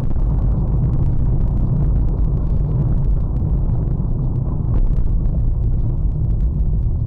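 A car driving along a street, heard from inside its cabin: a steady, loud low rumble of engine and road noise.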